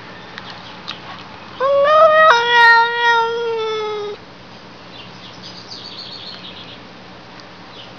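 Domestic cat giving one long meow of about two and a half seconds, rising at first and then sliding slowly down in pitch.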